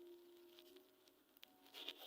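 Faint, scattered crackling clicks of foam beads popping in slime as it is handled, a few isolated clicks near the end.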